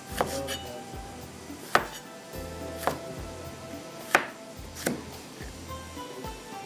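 Kitchen knife cutting through a tomato and striking a wooden chopping board, about five separate chops at uneven intervals.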